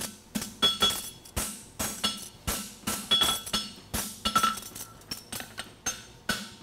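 Hand hammer striking a hot steel horseshoe on an anvil, about two to three blows a second at an uneven pace. Each blow has a short metallic ring from the anvil.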